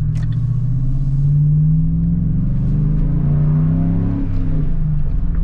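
5.3-litre V8 of a GMC Sierra breathing through a Carven TR muffler, heard from inside the cab under hard acceleration: the exhaust rumble climbs in pitch for about three seconds, drops back about four seconds in as the transmission shifts up, then runs on steadily.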